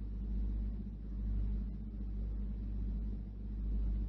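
Steady low hum with a faint hiss underneath: the background noise of the recording itself. It swells and eases slowly in level.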